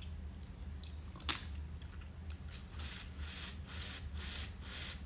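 Boiled crawfish claw cracked open between the teeth with one sharp crack about a second in, then soft wet sucking and chewing, about three a second, as the meat is eaten from the shell.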